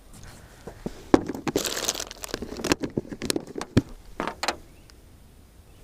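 Handling noise in a small jon boat: a few sharp knocks and a rustling scrape as gear is moved about.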